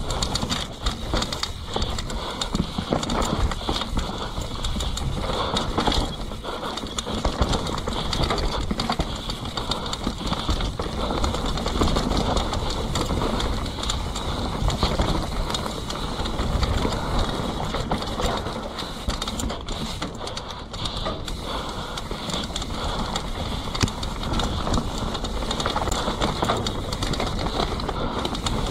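Mountain bike descending a dirt forest trail at speed: wind rushing over the microphone and tyres on dirt and leaves, with constant small rattles and knocks from the bike over roots and bumps.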